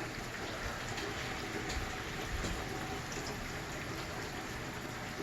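Steady rain falling, an even hiss of drops with a few faint patters on a hard surface.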